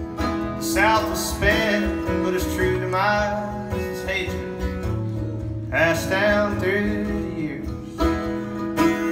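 Mandolin and acoustic guitar playing live together in an instrumental passage, with a run of plucked notes and slides over the guitar's chords.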